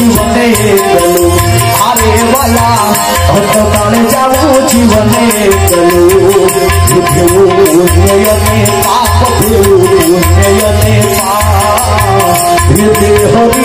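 Gujarati devotional bhajan music: a singer's voice and harmonium over a steady hand-drum beat.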